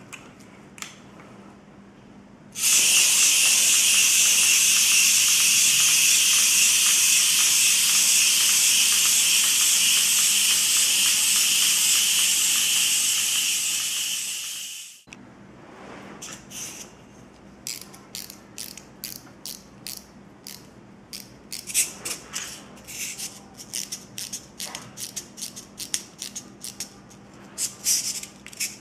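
The clockwork motors of two small plastic wind-up creeping soldier toys whir loudly and steadily as they crawl, tailing off as the springs run down and stopping abruptly about halfway through. After that comes a run of quick ratcheting clicks as the wind-up keys are turned again.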